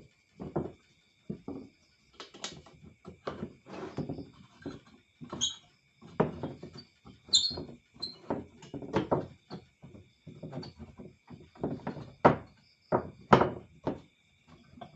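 Irregular knocks and thuds, several a second, with a few louder thumps, like wooden workshop parts being handled and set down, and a few short bird chirps about halfway through.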